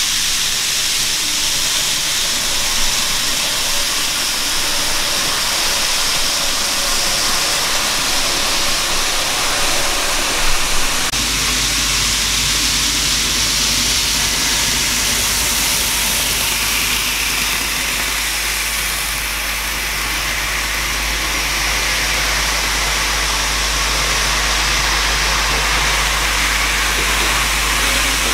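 N-gauge model trains running on the layout track, a steady whirring, hissing rolling noise from the small wheels and motors. About eleven seconds in, a steady low hum joins it.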